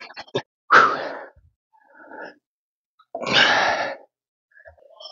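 A man's two heavy, sighing exhales, about a second in and again about three seconds in. The first half second has brief crackling clicks from a paint roller on wet floor lacquer.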